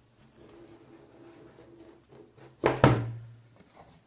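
Cardboard gimbal box being handled and opened: low rustling and sliding for about two seconds, then two sharp thuds close together about two and a half seconds in as the box or its lid is knocked and pulled open.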